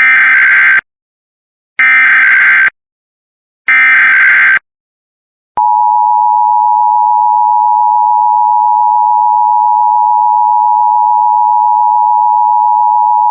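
Emergency Alert System activation tones. Three short screeching bursts of SAME digital header data, each under a second and about a second apart, are followed about five and a half seconds in by the EAS attention signal: a steady two-tone 853/960 Hz tone held for about eight seconds.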